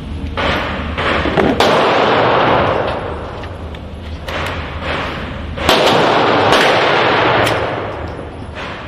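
Gunshots at a firing range: several sharp reports at irregular intervals, each followed by a long echoing tail.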